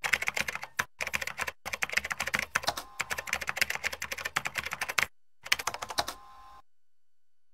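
Typing: a fast run of key clicks, with a short break about five seconds in, then a second brief run that stops about six and a half seconds in.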